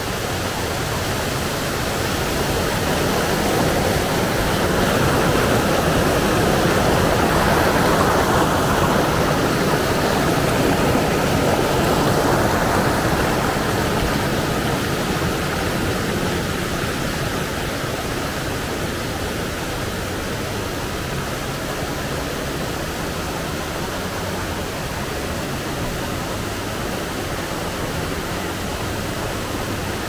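A fast mountain creek rushing and splashing over rocks in small whitewater cascades: a steady rush of water that grows a little louder a few seconds in, then eases back.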